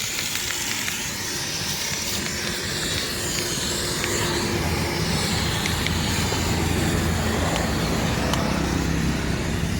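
A steady motor drone under a hiss, the low hum growing a little stronger about four seconds in.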